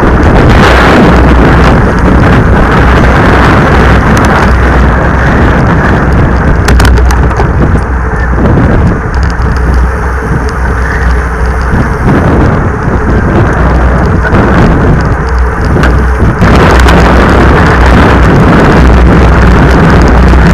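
Wind buffeting and road rumble on a bike-mounted action camera riding at race speed in a pack of road bicycles: loud, distorted noise with a heavy low rumble, easing off a little in the middle and picking up again sharply about two-thirds of the way through.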